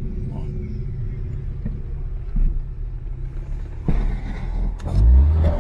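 Cabin rumble of a lowered Fiat Palio on air suspension driving slowly. About four seconds in there are two sharp knocks, and near the end a heavy low thump as the car goes over a pole lying across the road.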